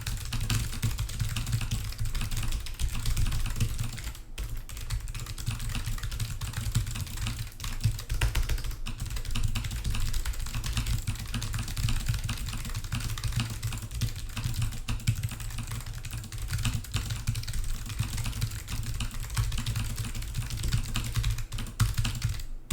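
Fast, continuous typing on a computer keyboard, a dense run of key clicks during a speed-typing test, stopping just before the end.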